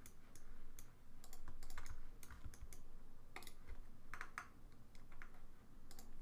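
Computer keyboard keys pressed at irregular intervals, single taps and short clusters, as Blender shortcuts are worked between mouse edits.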